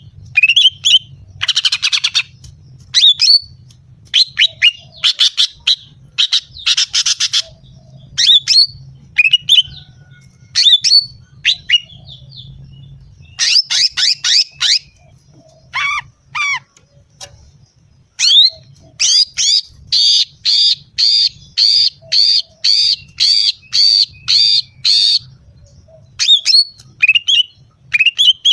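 Female green leafbird (cucak ijo) calling: sharp, high chips and short rapid rattles, then a run of about a dozen evenly repeated notes at roughly two a second. This is the female's call, used as a lure to rouse and provoke males.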